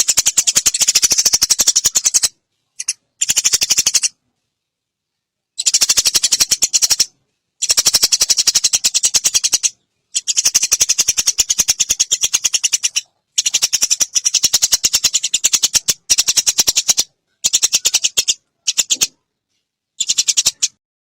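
Eurasian tree sparrow giving long, rapid rattling chatter calls, repeated in bursts of one to three seconds separated by short pauses.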